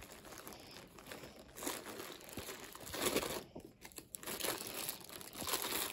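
Faint, irregular rustling and crinkling of thick Bobilon t-shirt yarn and the crocheted bag as the hook pulls the yarn through the edging stitches, with a couple of slightly louder rustles in the middle.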